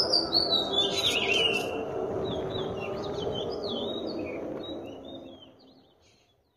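Small birds chirping and twittering in quick, varied calls over a soft, steady lower background, fading out about five seconds in.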